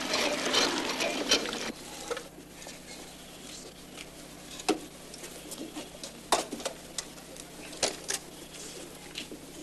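Water gushing from a tap into a bucket, cutting off after about two seconds, then a quiet stretch broken by a few scattered sharp clicks and knocks.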